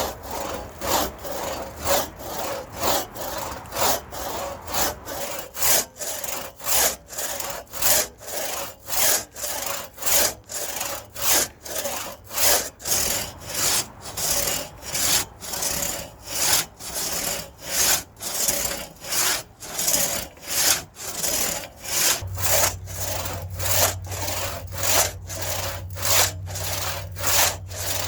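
Pre-1940 Disston one-man crosscut saw cutting through wood in steady push-and-pull strokes, about two a second.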